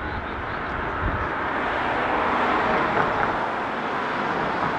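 Street traffic: a vehicle passing on the road, its tyre and engine noise swelling to a peak about two to three seconds in, then easing.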